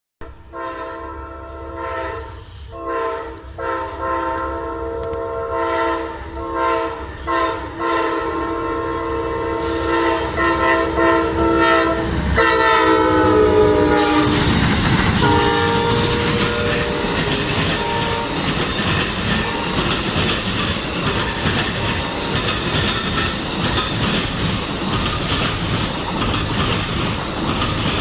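Locomotive air horn sounding a series of blasts as a train approaches, the pitch dropping as it goes by. The train then passes close by, with a loud, steady rumble and the clickety-clack of its wheels on the rail joints.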